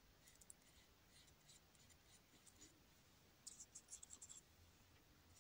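Very faint scratchy ticks of a paintbrush stroking and dabbing acrylic paint onto canvas, with a quick run of them a little past halfway.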